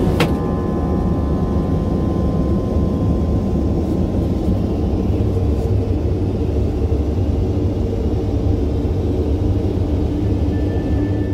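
Steady low rumble of an airliner cabin in flight, heard from inside the aircraft lavatory, with a single sharp click just at the start.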